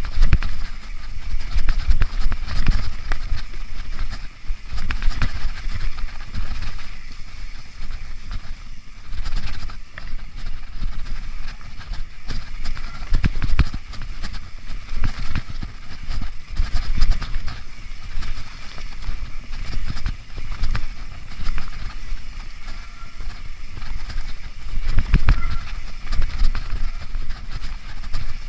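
Mountain bike descending a rough forest trail: tyres rolling over roots, stones and dry leaves, with frequent irregular knocks and rattles from the bike as it bumps along.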